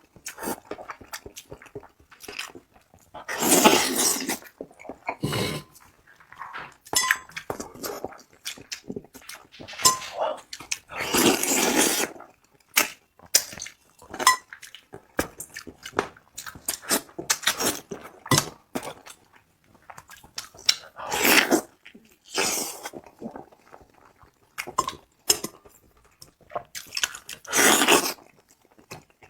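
Close-up eating sounds of a spicy braised rooster head being chewed: irregular wet smacking, crunching and small cracks of bone and cartilage, with a few longer, louder sucking bursts.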